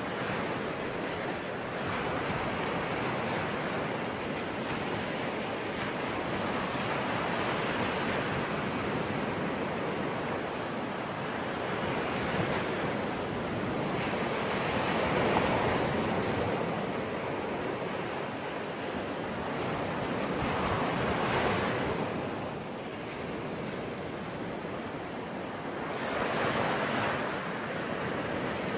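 Ocean waves breaking on the shore in a continuous wash, with swells of louder surf about halfway through, again a few seconds later and near the end.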